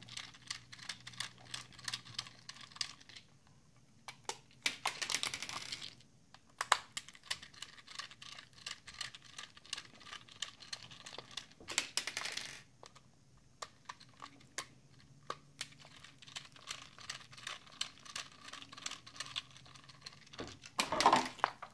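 A Torx screwdriver backs screws out of a Kobalt 24V MAX battery pack's plastic case. It makes many small irregular clicks and scrapes, broken by a few short louder rustles of handling.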